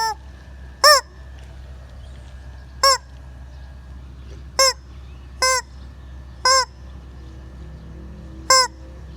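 Rubber chicken squeeze toy squawking six times in short, separate squeezes, each a brief pitched honk, spaced about one to two seconds apart.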